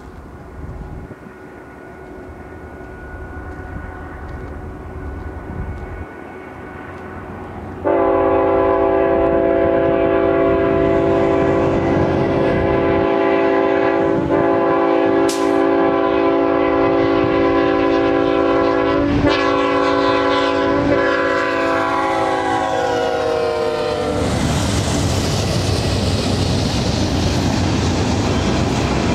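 A BNSF GE ET44C4 diesel locomotive approaches, its engine and rumble growing louder, then about eight seconds in its multi-chime air horn blows a long, loud, steady chord for roughly sixteen seconds, dropping in pitch as the locomotive passes. After that the double-stack intermodal cars roll by with a steady wheel rumble and clickety-clack.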